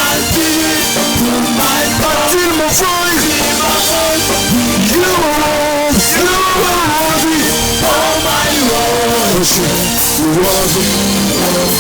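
Praise and worship band music with drum kit and cymbal crashes under a singing melody.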